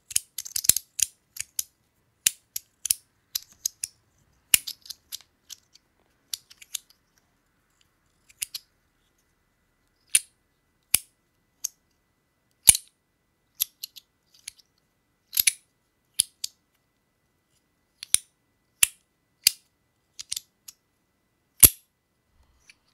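Compoform metal fidget being worked by hand: a string of sharp metallic clicks and clacks, rapid at first, then single clicks spaced about a second apart after a short lull.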